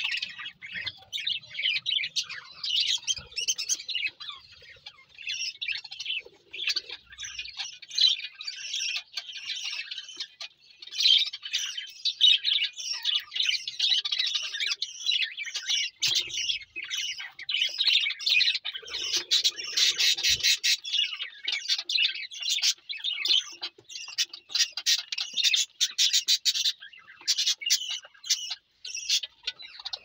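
A flock of budgerigars chirping and chattering without a break, a dense mass of overlapping high chirps.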